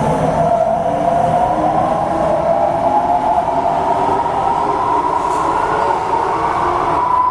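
Metro train of the MRT Kajang line heard from inside the car while running: a steady rumble with a whine that rises slowly in pitch.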